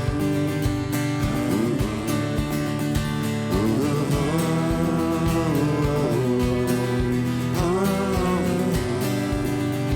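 Acoustic pop-rock band playing an instrumental passage live: strummed acoustic guitar over a steady beat, with a melody line gliding up and down above it.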